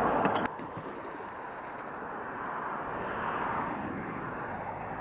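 Road traffic: a louder rush with a couple of sharp clicks that drops away about half a second in, then a steady hum of traffic that swells as a vehicle passes around the middle and fades again.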